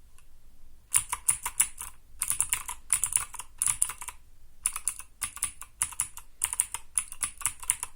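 Keystrokes on a Motospeed CK61 mechanical keyboard whose switches are lubricated with silicone grease and which has a foam layer under the PCB. The keys are pressed in quick bursts of several presses, starting about a second in.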